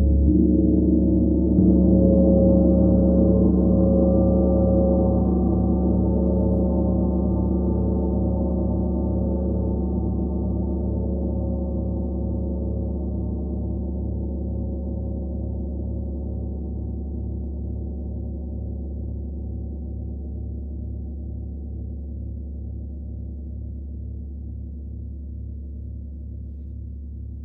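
32-inch Tree of Life gong struck with a soft mallet about a second and a half in, then left to ring. It gives a deep, many-layered tone with a steady low pulsing beat and a long sustain that fades slowly across the whole stretch.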